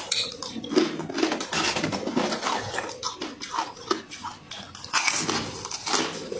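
A person bites and chews chunks of frost-covered ice, making a quick run of crisp crunches that grows louder about five seconds in.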